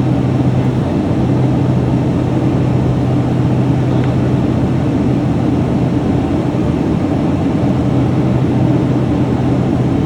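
Steady cockpit drone of the Piper Cheyenne III's twin turboprop engines and propellers in flight, a constant low hum under a broad rushing noise.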